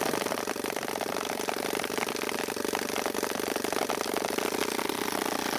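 Arduino-controlled paintball gun turret firing in one sustained rapid burst: a dense, even rattle of very fast shots that starts and stops abruptly.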